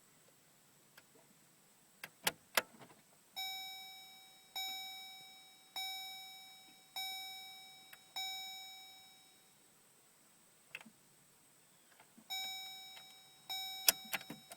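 Chevrolet Colorado's warning chime dinging at an even pace about once every 1.2 seconds, each ding ringing and fading. It sounds five times in a row, then twice more near the end. Sharp clicks come before the chimes and again near the end.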